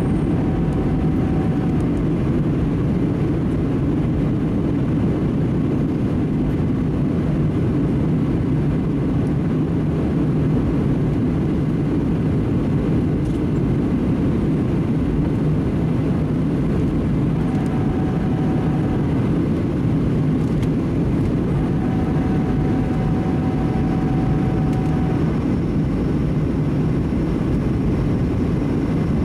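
Steady cabin noise inside a Boeing 737-700 in descent: the drone of its CFM56-7B turbofan engines mixed with airflow past the fuselage.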